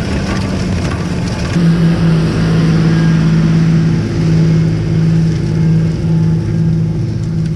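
Tractor diesel engine running with a steady low drone. For the first second and a half it comes with a crunching, rattling noise, then changes abruptly to a smoother, stronger, slightly pulsing engine hum.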